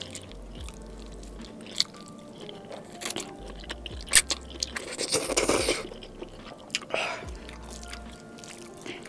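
Close-miked slurping and chewing of black bean instant noodles, with sharp wet mouth clicks and a longer slurp about five seconds in.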